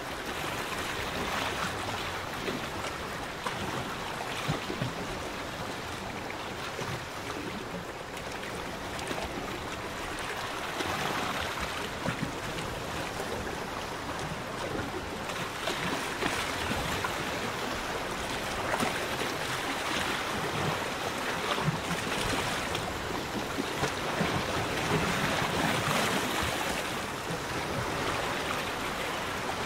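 Choppy lagoon water lapping and splashing in a steady wash, with small splashes coming and going at irregular moments.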